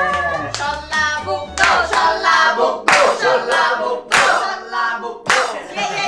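Sung outro music ending about half a second in, followed by a run of loud hand claps, roughly two a second.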